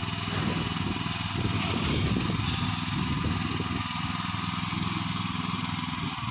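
The small backhoe's 15 hp gasoline engine running steadily.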